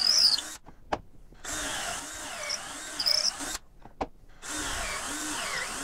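Power drill boring pocket holes through a Kreg K4 pocket-hole jig: the bit runs in three stretches of a second or two each with short pauses between, its pitch wavering as it cuts into the wood.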